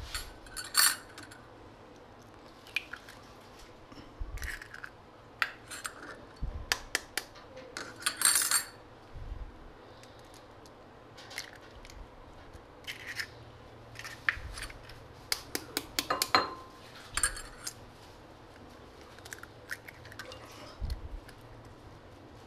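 Raw eggs being cracked: shells tapped with a metal fork and broken open by hand over a glass bowl, giving scattered sharp taps and cracks with a few quicker clusters and light clinks.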